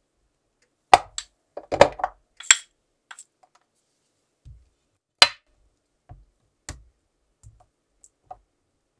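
Cubes of butter dropped into a nonstick frying pan, a quick run of sharp taps as they land, followed by scattered knocks of a wooden spatula against the pan as it pushes the butter around.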